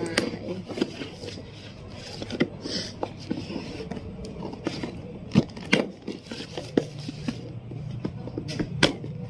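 Scissors cutting and snipping through packing tape on a cardboard parcel, with irregular sharp clicks and scrapes of the cardboard being handled. A low steady hum sits underneath and grows a little stronger near the end.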